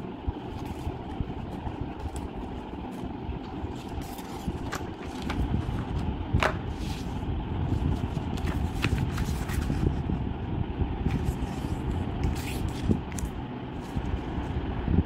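A sheet of craft paper being handled, smoothed and creased on a tabletop: soft scrapes, rustles and small clicks, one sharper click about six seconds in, over a steady low background rumble.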